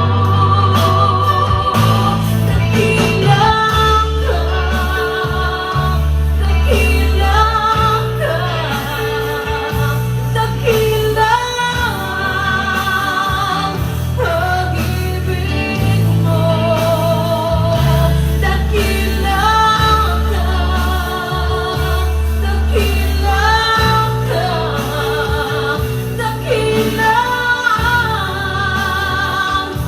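Worship song: a woman singing long notes with vibrato over a steady band accompaniment with a strong bass.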